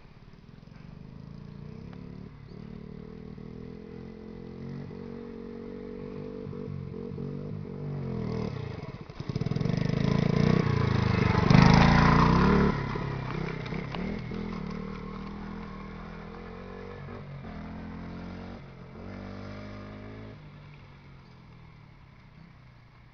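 Honda Monkey 50 mini motorcycle's small single-cylinder four-stroke engine running under throttle. It grows louder as the bike approaches, is loudest as it passes close by about halfway through, then fades as it rides away. The engine note rises and falls several times with throttle and gear changes.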